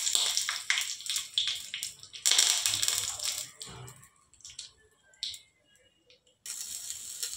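Hot oil tempering (tadka) of mustard seeds, dried red chillies and curry leaves, sizzling and crackling hard in a small steel tadka pan. The spluttering thins to scattered pops after about four seconds as the pan comes off the flame, and a short burst of sizzling follows near the end.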